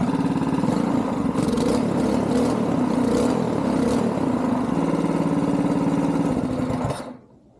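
212cc single-cylinder go-kart engine running, not too loud, its speed rising and falling a few times, then shut off about seven seconds in, stopping suddenly.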